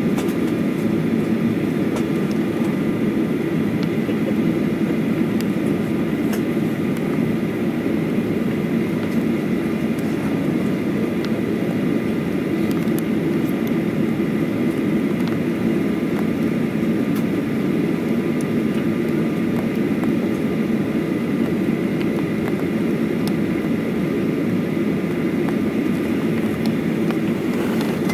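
Steady cabin noise of a jet airliner taxiing, its engines running at low power, heard from a window seat over the wing. A faint steady whine sits above the rumble.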